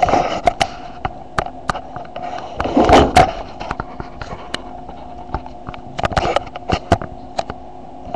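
Handling noise: irregular clicks and taps, with a louder rustle about three seconds in, over a faint steady hum.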